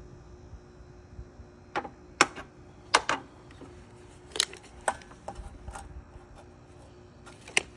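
Sharp clicks and clacks of a jobsite table saw being adjusted by hand, about eight of them at irregular spacing, with the saw switched off.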